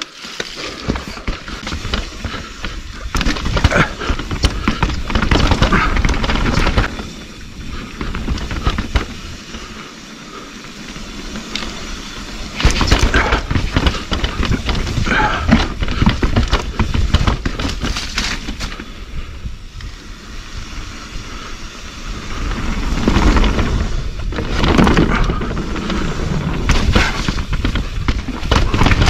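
Mountain bike descending a rough, muddy trail: the bike clatters and rattles in quick, irregular knocks over a steady rushing noise. The clatter eases off twice, about a quarter of the way in and again past the middle.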